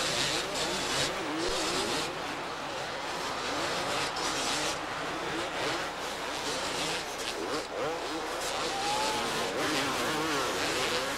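Several two-stroke motocross bikes racing at once, their engines revving up and down over one another in overlapping whines.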